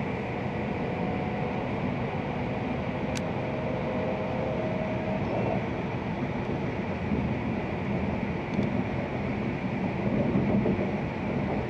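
Cabin noise inside an E6 series Shinkansen car pulling out of the station and gathering speed. It is a steady rumble with a faint whine that rises slightly in pitch over the first few seconds, two light clicks, and a little more low rumble near the end.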